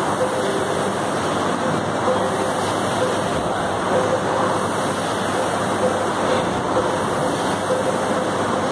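Air-resistance rowing machine's flywheel fan spinning under a rower's hard strokes: a steady rush of air that swells and eases slightly with the strokes.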